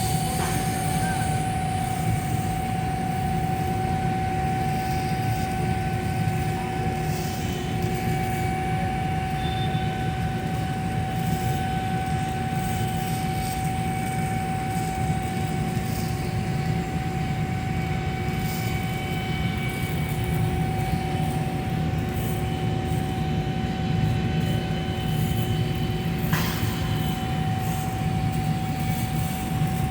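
Steady machine drone: a constant low rumble with a steady whining tone above it, unchanging throughout.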